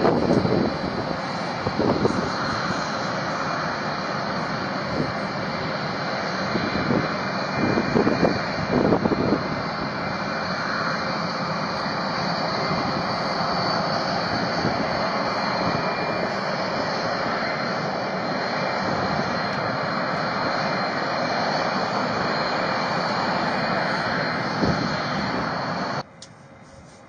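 Jet aircraft engines running steadily: an even rushing noise with a high whine, swelling a few times, then cutting off suddenly about a second before the end.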